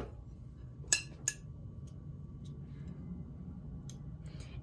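Two light clinks of a utensil against a dish about a second in, a third of a second apart, over a low steady hum.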